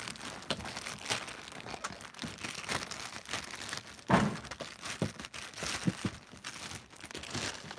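Plastic packaging crinkling and rustling as it is handled, with scattered small knocks and one heavier thump about four seconds in.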